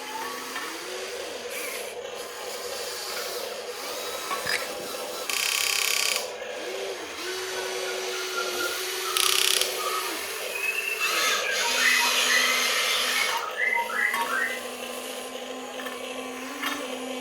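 Small electric motors of RC toy excavators whining as they start, hold and stop again and again, their pitch rising and falling with each movement. Several louder noisy bursts about a second long break in.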